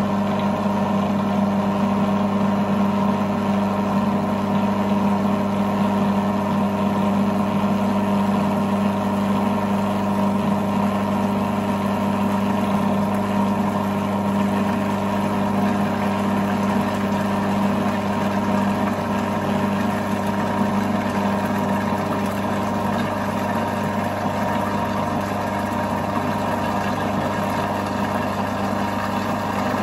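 Food processor motor running steadily with its blade whizzing, a constant even hum, while melted butter is poured in slowly to emulsify the eggs into a béarnaise sauce.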